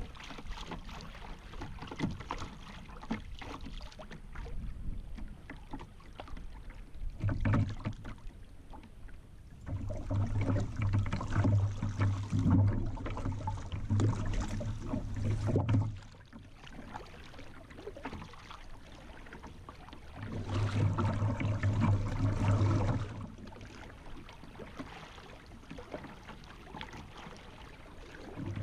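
Kayak moving down a river: water rippling and splashing against the hull close to the bow-mounted camera. It grows louder for several seconds at a time, with a low hum in the louder stretches.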